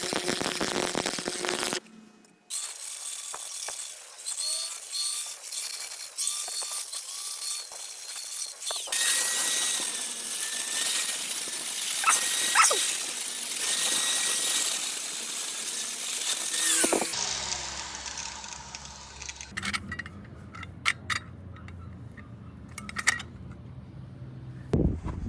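Power tools running on metal in a few short clips joined by abrupt cuts, a steady high hiss with a whine, followed by a quieter stretch with sharp metallic clicks and knocks.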